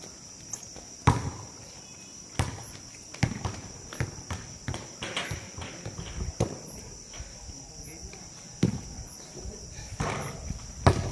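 A basketball bouncing on a hard outdoor court, a loud thud about a second in and then scattered thuds at uneven intervals. Under it runs a steady high-pitched hum of insects.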